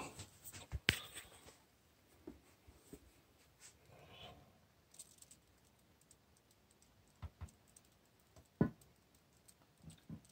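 Scattered small clicks and knocks of plastic being handled, a few at a time, as a soap dispenser bottle is refilled with liquid soap; the sharpest knock comes near the end.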